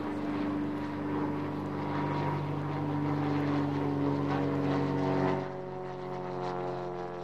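Steady engine drone made of several held tones. About five seconds in it drops a little in level and its pitch shifts.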